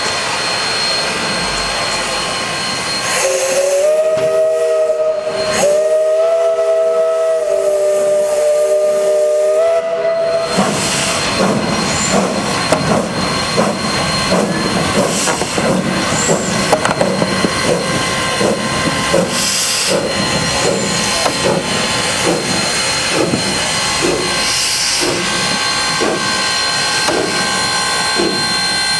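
Steam whistle of a small 1913 0-4-0 steam locomotive blowing a chord of several notes for about seven seconds, starting about three seconds in. After it, the locomotive's exhaust chuffs in a steady beat over a constant hiss of steam as it moves.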